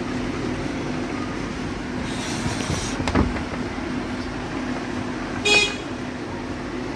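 Steady traffic noise with a short vehicle horn toot about five and a half seconds in, and a single knock a little after three seconds.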